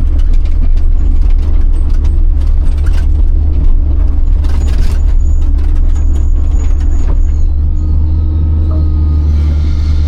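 Large excavator's diesel engine running under load with a steady low rumble, over scattered clunks and knocks of the machine at work and a thin squeal in the middle. Near the end the engine settles into a steadier, more even note.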